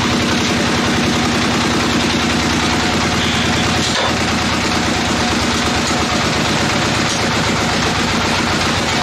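Engine-driven sawmill bandsaw running steadily: a loud, even engine drone with rapid, regular firing pulses.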